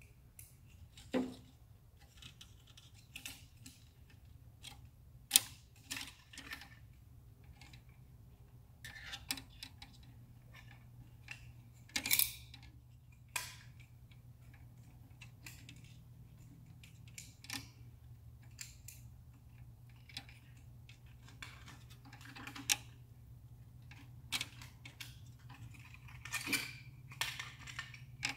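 Scattered small clicks and taps of a plastic keypad housing and its antenna wire being handled, as the wire is threaded through a freshly drilled hole in the housing, over a faint steady low hum.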